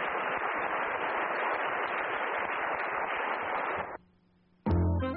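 Audience applause at the close of a lecture, even and sustained, cut off abruptly about four seconds in. The first notes of music come in near the end.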